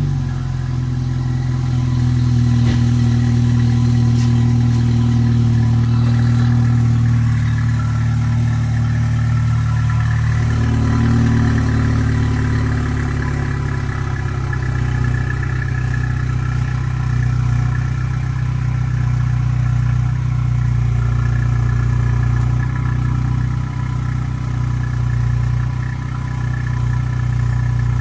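BMW F30 3 Series engine idling steadily.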